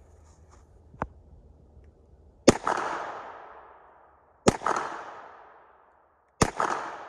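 Three single shots from a Kriss Vector Gen II, about two seconds apart, each echoing and fading away over a second and a half. A fainter, sharp crack comes about a second in.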